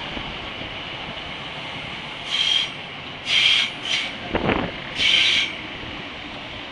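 Class 318 electric multiple unit rolling past with a steady rumble of wheels on rail. Four short screeching bursts of wheel squeal come in quick succession in the second half.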